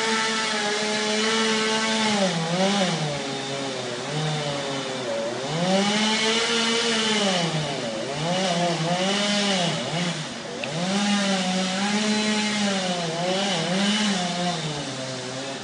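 Excavator's diesel engine working, its pitch dipping and climbing back again and again as the hydraulics take load.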